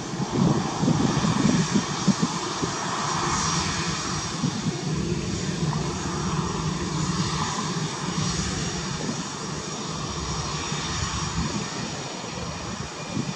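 Airbus A320 jet engines running as the airliner rolls along the runway on its landing roll, ground spoilers raised. A steady rushing jet noise, gusty at first, easing a little as the aircraft moves away.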